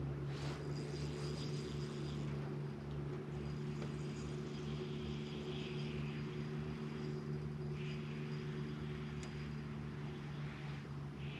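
Bass boat's bow-mounted electric trolling motor humming steadily with a low tone, with a brief swish about half a second in.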